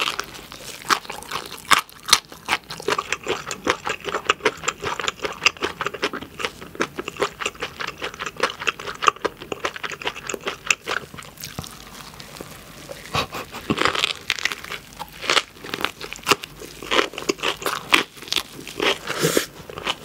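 Close-miked eating of a whole pork belly gimbap roll: a bite at the start, then continuous chewing with many small sharp clicks, louder around the middle and again near the end.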